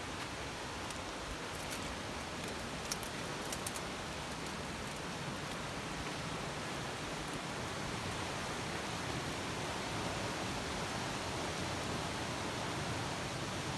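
Creek in flood: fast, turbulent brown water rushing steadily past bridge piers, a continuous rush that grows slightly louder in the second half. A few faint clicks come about three seconds in.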